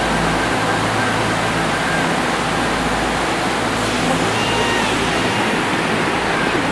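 River rapids rushing over rock slabs: a steady, unbroken roar of running water.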